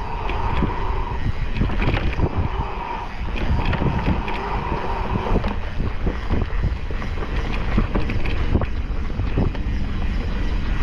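Mountain bike moving along a rough trail. Wind buffets the microphone, and the bike rattles and knocks over bumps. A buzzing tone runs through the first five seconds or so.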